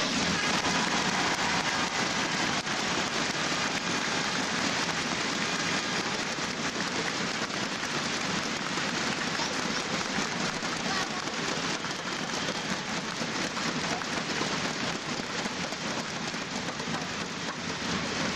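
Audience applauding steadily: dense, even clapping from a large indoor crowd.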